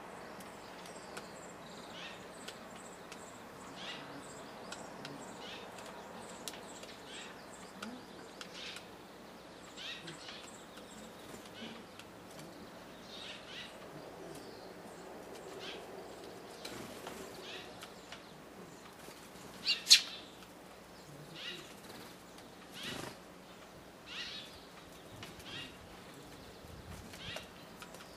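Eurasian tree sparrows chirping in short, scattered calls, with a single sharp tap about twenty seconds in.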